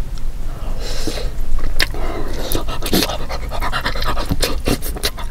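Close-miked eating of a steamed soup dumpling: wet chewing and mouth clicks, with breathing in and out through the mouth between bites.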